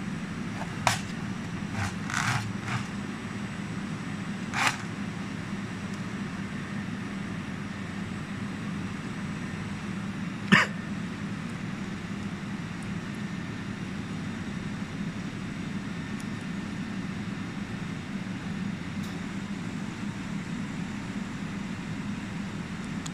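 Steady low hum of workshop machinery, with a few short sharp metallic clicks and knocks as the laser welding head and its hose fittings are handled on a steel bench. The loudest knock comes about ten seconds in.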